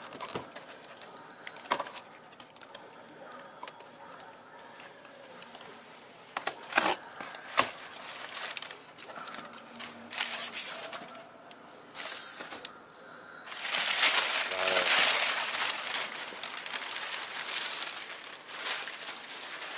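Crumpled kraft packing paper rustling and crinkling as it is handled and pulled out of a cardboard shipping box, with scattered knocks and clicks. The loudest, longest rustle comes about two-thirds of the way through.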